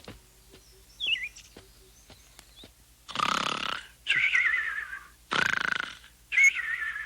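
Cartoon snoring of an elderly man: a rasping snore on each in-breath followed by a wavering, falling whistle on each out-breath, twice, starting about three seconds in. Before that, a few short high chirps like cartoon birds.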